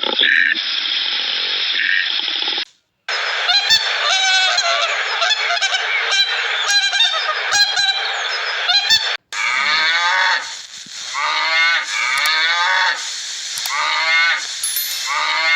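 Geese honking in repeated calls, across several spliced clips with brief silent gaps between them.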